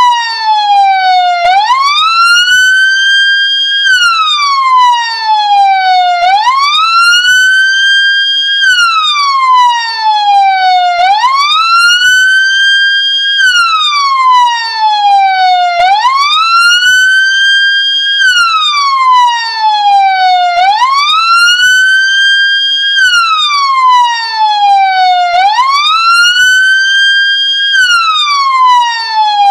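Ambulance siren wailing: each cycle rises quickly in pitch, holds briefly at the top, then falls slowly, repeating about every five seconds.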